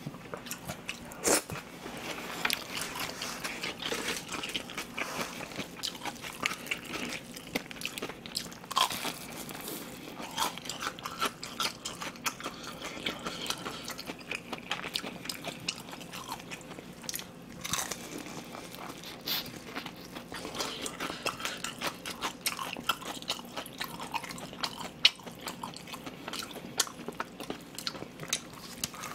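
Close-miked biting, crunching and chewing of crispy fried chicken, with a dense run of sharp irregular crackles and a few louder crunches.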